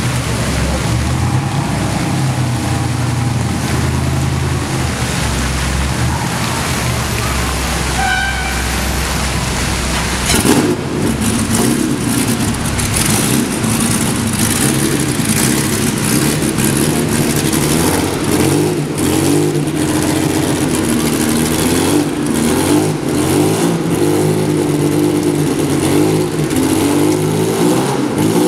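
Aston Martin DBR2 race car's straight-six engine idling with a low, steady note, then revved repeatedly from about ten seconds in, its pitch rising and falling with each blip of the throttle.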